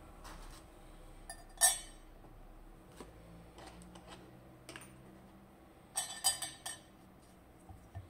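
Small metal clicks and clinks from a brass lock cylinder being handled with steel tweezers and tools: one sharp click about one and a half seconds in, a few light ticks, then a quick run of clinks about six seconds in as it is set down for disassembly.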